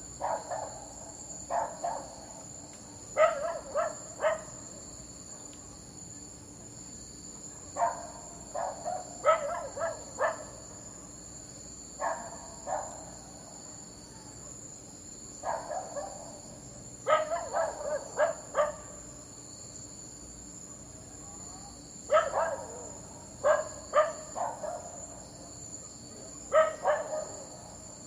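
A dog barking in short bouts of two to four sharp barks, with pauses of a second or more between bouts. Crickets or other insects chirr steadily in the background.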